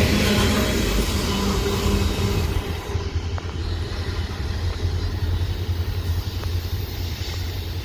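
Freight train rumbling past and fading away. The higher rail and wheel noise drops off about three seconds in, leaving a low steady rumble.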